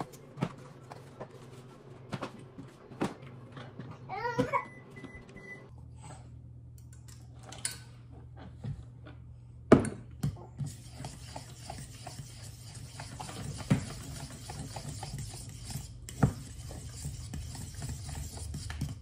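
Kitchen dishes and utensils clinking and knocking, with a short wavering high-pitched sound about four seconds in. Roughly halfway through, a steady hiss starts and runs until just before the end, with light knocks over it.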